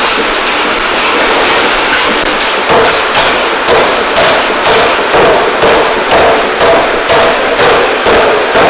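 Air forging hammer's ram pounding a red-hot workpiece in rapid, regular blows, about two a second, starting about three seconds in, over a constant loud noise.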